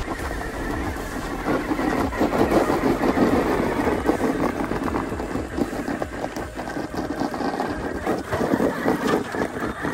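A 12-wheel RC rock crawler driving, its drivetrain running steadily under a dense, irregular crackle of knocks and clatter.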